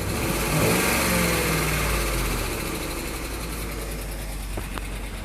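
Ford 4.6 L Triton V8 in an '07 Explorer revved once, rising about half a second in and then dropping back toward idle; this is the engine with a clicking noise that the owner puts down to a failing cam phaser.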